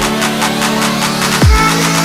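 Electronic dance music with a steady beat: deep falling kick drums, fast hi-hats and held synth chords.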